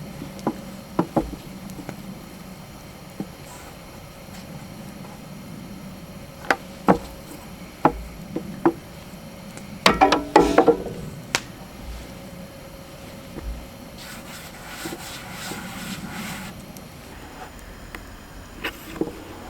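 Scattered knocks and clatter of hard objects, with a quick cluster of them about halfway through and a short rustling noise a little later.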